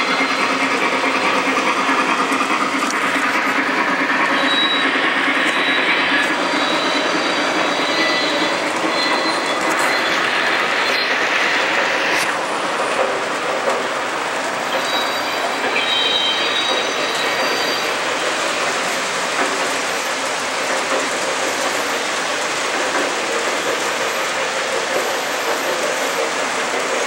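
O scale three-rail model steam trains running, a steady rumble of metal wheels rolling on the track. A few thin high tones come and go over it.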